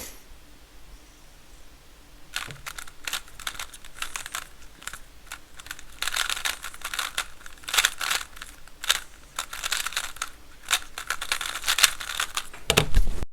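A GAN i Carry smart cube being turned quickly, its plastic layers clicking and clacking in uneven rapid flurries that start about two seconds in. A louder thump comes near the end, just before the sound cuts off.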